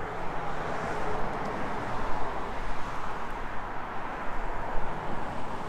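Steady roadside traffic noise, a continuous rushing sound, with a low steady hum underneath.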